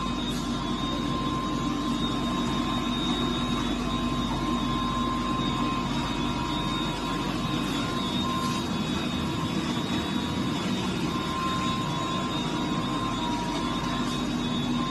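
Industrial retort sterilizer machinery running: a steady mechanical hum and rush with constant high whining tones.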